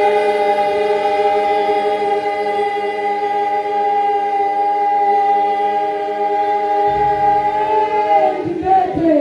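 A choir of voices holding one long sung chord, the notes steady, then sliding down and breaking off near the end.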